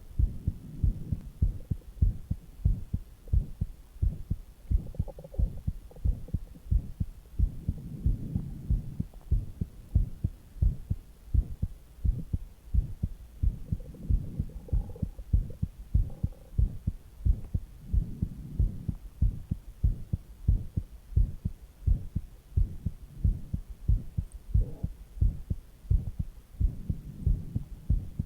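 Human heartbeat at rest: steady, even thumps repeating throughout. Stomach gurgles rise softly under the beats at several points.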